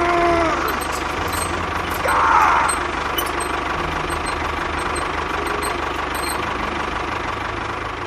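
A small engine running steadily with a rough, rattling noise, briefly louder about two seconds in.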